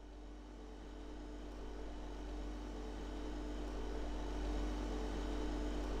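Steady low hum of a running refrigeration unit's compressor and condenser fan, with a constant faint tone above it, slowly growing louder.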